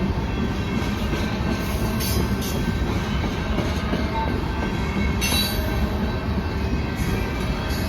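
CN freight train rolling past: a loud, steady rumble of wheels on the rails, with a few brief high-pitched squeals from the wheels cutting through it.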